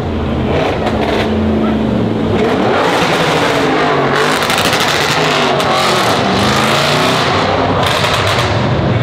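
Performance car engine running loud with a fairly steady note at first, then revved repeatedly from about two seconds in, its pitch climbing and falling several times before settling.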